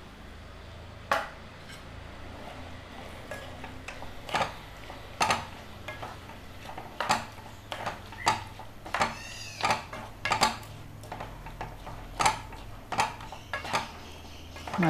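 A wooden spatula knocking and scraping against a nonstick kadai while stirring a thick curry, with irregular knocks about once or twice a second.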